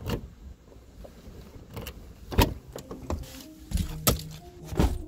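Key turning in the door lock of an old Mercedes, followed by several sharp clunks from the car's door and cabin spread over a few seconds.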